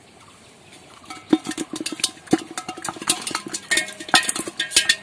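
Freshly caught small fish knocking inside an aluminium pot: a rapid, irregular clatter of metallic taps and clanks with a ringing note, starting about a second in.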